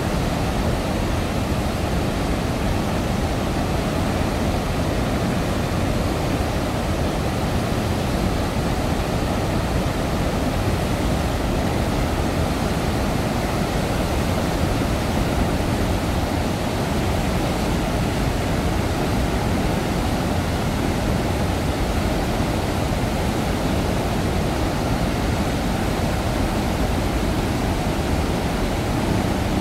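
Large volume of floodwater pouring through open dam spillway gates into churning, turbulent water below: a loud, unbroken roar.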